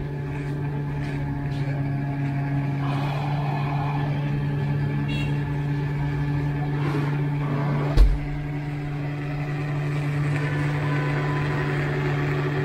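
A steady machine hum at an even pitch, with one dull low thump about eight seconds in.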